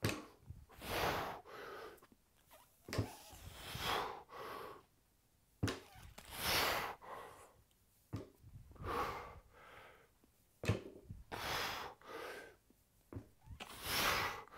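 A man's hard breathing through a set of heavy barbell deadlifts: a forceful rush of breath about every two and a half seconds, one per rep. Between the breaths comes a short knock as the barbell plates touch the floor on each rep.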